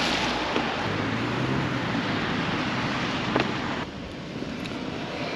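Steady rushing noise of wind and rain outdoors, with a low steady hum through the middle. The noise drops suddenly in level about four seconds in.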